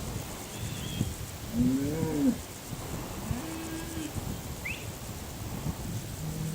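Cattle mooing: one loud, bending moo about one and a half seconds in, a shorter, flatter moo around the middle and a faint one near the end. A few short bird chirps sound in the background.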